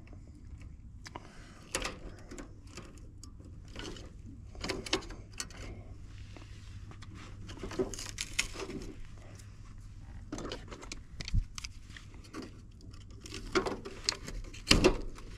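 Irregular clicks, taps and rustles of hands handling tools and wiring, over a steady low hum.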